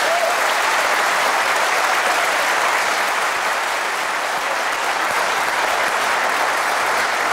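Large audience applauding, a dense and steady clapping at an even level.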